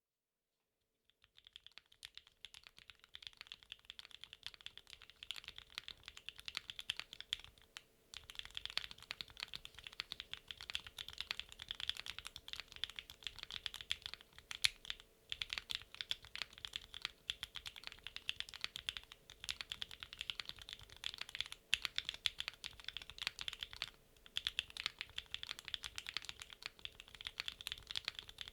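Continuous fast typing on a mechanical keyboard with Gateron Milkshake linear switches, FR4 plate and PBT/ABS double-shot keycaps: a dense run of keystroke clacks starting about a second in, with brief pauses now and then.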